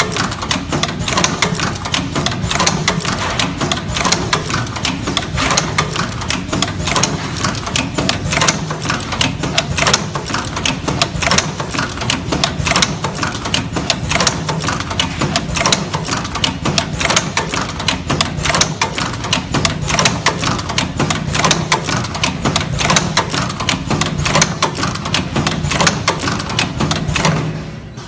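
Automatic cutting and stripping machine for three-core power cable running: a dense, rapid clatter of its cutting and stripping mechanism over a steady machine hum, which stops near the end.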